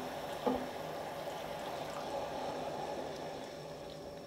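Orange sauce bubbling in a stainless saucepan as a silicone spatula stirs in cornstarch slurry, the sauce starting to thicken, with a light knock about half a second in.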